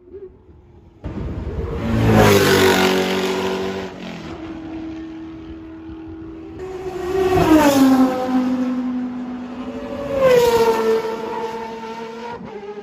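Four-rotor rotary engine of a Mazda Group C race car running loud at high revs. It jumps in abruptly about a second in and swells three times, the pitch falling after each peak, as in a car going past at speed.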